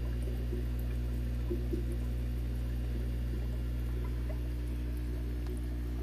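Aquarium sponge filter bubbling steadily as air rises through its lift tube, over a steady low hum.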